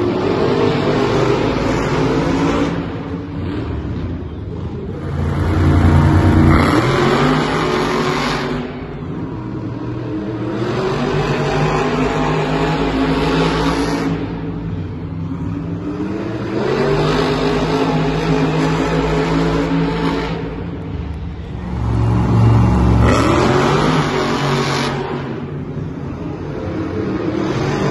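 Two monster trucks' supercharged V8 engines revving hard as they race around the track, the sound rising and falling in repeated surges. It is loudest about six seconds in and again about twenty-three seconds in.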